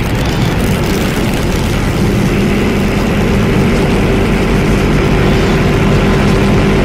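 Experimental harsh noise music: a loud, dense wall of noise over steady low droning tones.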